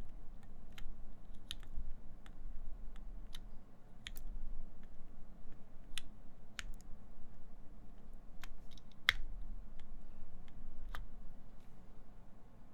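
Typing on a wilba.tech Thermal mechanical keyboard with lubed Gateron Ink switches, a full aluminium plate and GMK keycaps: sparse, uneven keystrokes, one louder stroke about nine seconds in, thinning out near the end.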